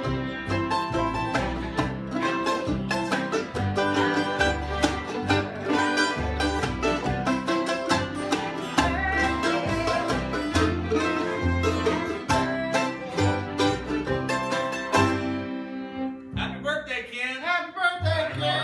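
Acoustic bluegrass string band (banjo, acoustic guitars, fiddle, mandolin and upright bass) playing a tune together, with a steadily pulsing bass line under the plucked strings. About fifteen seconds in, the dense picking thins out.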